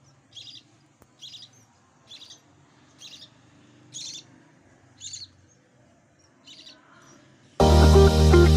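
Baby budgerigar chirping in a steady series of short high calls, about one a second, seven in all. Loud guitar music starts near the end.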